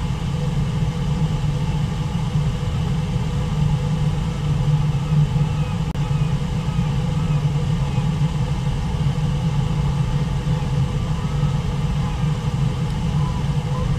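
Steady low roar of a river waterfall: whitewater pouring over the falls and rushing through the rapids below.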